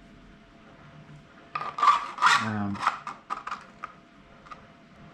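Hard 3D-printed plastic parts of a cryptex clicking and clattering as they are handled: a burst of rattling about a second and a half in, with a brief falling squeak, then a few scattered single clicks.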